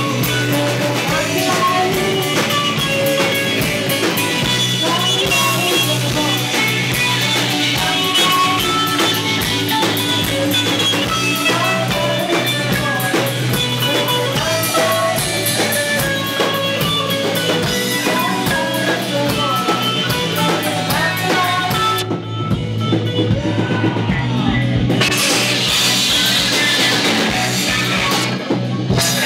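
Live rock band playing with a woman singing: drum kit, bass, electric and acoustic guitars, with a steady beat. About 22 seconds in the top end thins out for about three seconds, then the full band comes back in.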